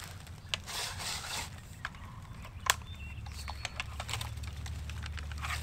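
Light knocks, clicks and rustling as a cordless pole saw is raised and handled overhead, with no cutting yet; a low steady rumble sets in about halfway through.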